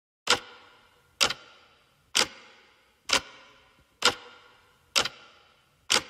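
Even ticking, about one sharp tick a second, each tick ringing briefly, like a clock.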